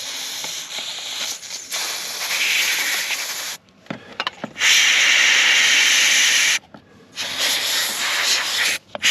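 Pressurised spray hissing onto an EGR valve being cleaned, in three long bursts of one to three seconds each with short pauses between, the middle one the loudest, and a short burst at the end.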